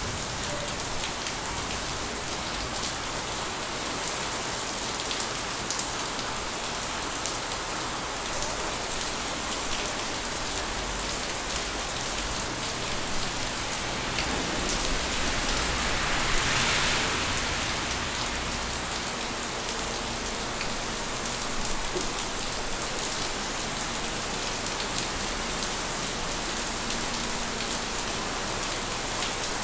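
Steady summer rain falling on surfaces, with scattered drop ticks. A little past halfway the sound swells for a few seconds, then settles back.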